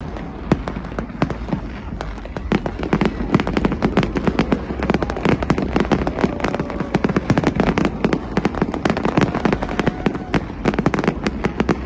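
Fireworks display going off in a rapid, unbroken barrage of bangs and crackles, many per second, growing denser and louder a couple of seconds in.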